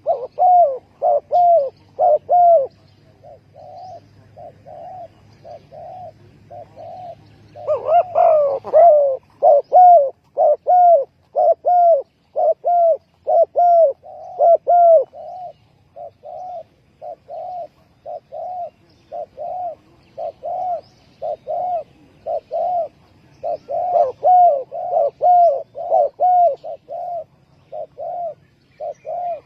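Doves cooing: a long, rapid run of short coo notes, about two a second. At times it grows louder, as if more than one bird is calling.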